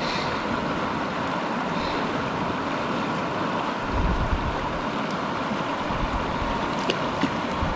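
Steady wash of a fast mountain creek running over rocks, with low wind buffeting on the microphone at times and a couple of faint clicks near the end.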